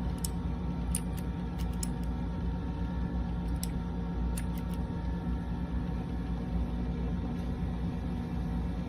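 Scattered single clicks of a mechanical keyboard with clicky blue switches, mostly in the first five seconds, over a steady low hum.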